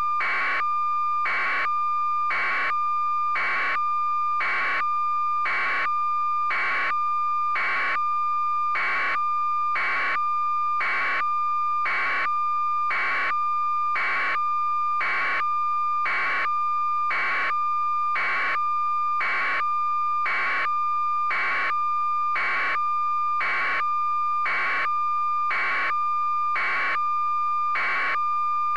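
A steady electronic tone with a short buzzing pulse repeating about once a second, an unchanging line-up or test signal on the audio track.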